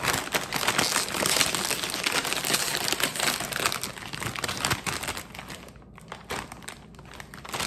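A Ruffles potato chip bag crinkling loudly as it is pulled open and handled. The crinkling is densest for the first five seconds or so, then thins to a few scattered rustles.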